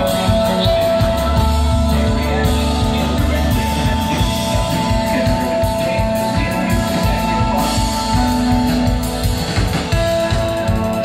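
Instrumental ambient rock played live by a three-piece band: held electric guitar notes over bass and steady drums.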